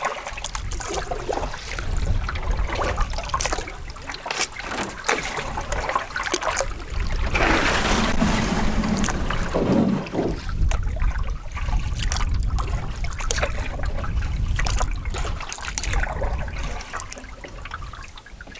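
Water splashing and trickling around a small pack canoe moving along a river, with a steady low wind rumble on the microphone. The splashing is loudest for a few seconds near the middle.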